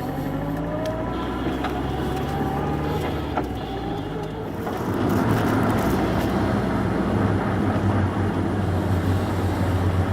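A car being driven: the Subaru Impreza WRX STI (GDB) turbocharged flat-four's engine note rises steadily under acceleration for about four seconds, then gives way to louder, steady engine and road noise.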